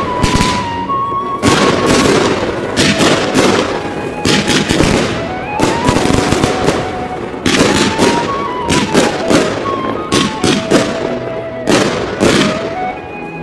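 Fireworks going off in quick succession: a dense, continuous string of bangs and crackling bursts.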